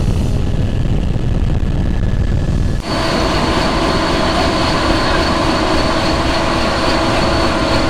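Helicopter noise throughout. First a low, steady rumble of a helicopter heard from inside the cabin in flight. About three seconds in it changes abruptly to a single-turbine AS350-type helicopter running on the ground with its rotor turning, a steady engine roar with a high turbine whine over it.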